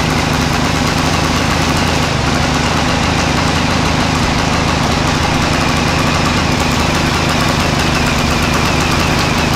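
An engine idling steadily close by, with an even, unchanging pitch.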